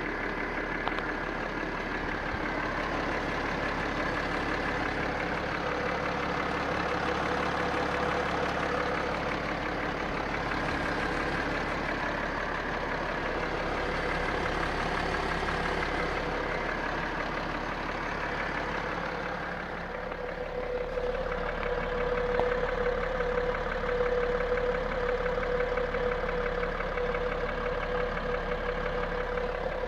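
BMW M57TU2 3.0-litre straight-six diesel idling with a distinct, rhythmic 'tah tah tah' knock that keeps time with the engine, louder than injector or valve tapping. Injectors have been bench-tested and rebuilt without curing it; others suggest a piston fault, and the cause is still unknown. The sound grows a little louder about two-thirds of the way through.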